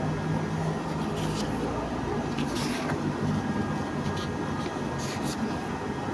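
Paper pages of a booklet being turned, a few short rustles over a steady low hum.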